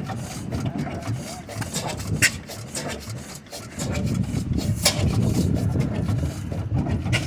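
Steam engine running with a steady, rhythmic low beat, which gets louder about four seconds in; a few sharp clicks stand out.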